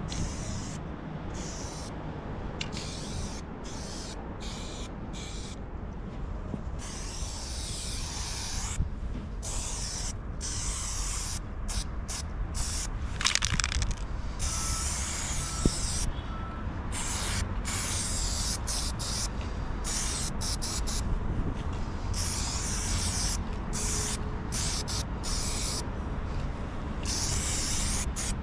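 Aerosol spray paint can hissing in short, repeated bursts that start and stop many times, from a fraction of a second to a few seconds each.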